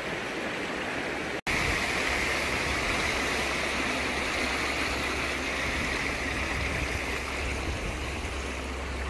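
Shallow stream running over and between the rocks of a stone stepping-stone crossing: a steady rush of water. It breaks off for a moment about a second and a half in and comes back louder.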